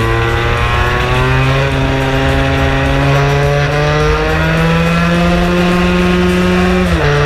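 Vespa scooter's two-stroke engine running hard at high revs, its pitch climbing slowly and steadily as it pulls, then dipping sharply near the end.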